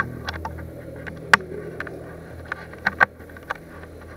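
Footsteps and clicks of kit as a player moves across a gritty concrete floor: irregular sharp clicks and knocks, the loudest about a second and a half in, over a low hum that fades away.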